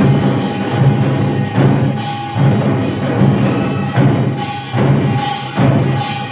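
Samulnori ensemble playing Korean traditional percussion (kkwaenggwari small gong, jing large gong, janggu hourglass drum and buk barrel drum) in a dense, driving rhythm with repeated loud accented strikes.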